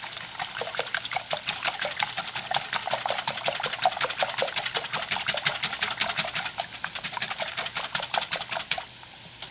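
A whisk beating eggs and cream in a bowl: fast, even clicking strokes, about six a second, that stop shortly before the end.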